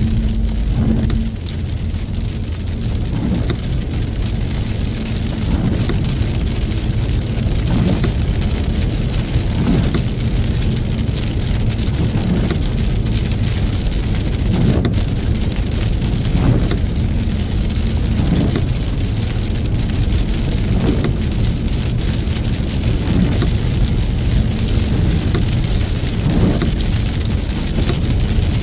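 Heavy rain beating on a car as it drives, over a steady low rumble of engine and road. A faint sweep recurs every second or two.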